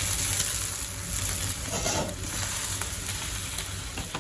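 Boiled chicken pieces sizzling in hot oil with onion and ginger-garlic paste in a kadai, with a steady frying hiss, while being stirred.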